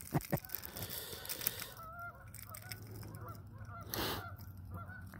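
Geese honking, a string of short faint calls repeating from about two seconds in. A brief noise about four seconds in.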